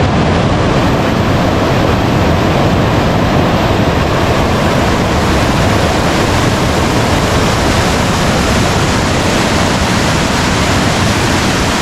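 Loud, steady rush of river water in full flow, an even hiss with no breaks or distinct events.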